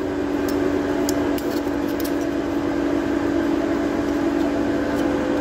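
Steady hum of a running electric motor, one even tone with a fainter higher one above it, holding at a constant level. A few faint light clicks sound over it in the first two seconds and again near the end.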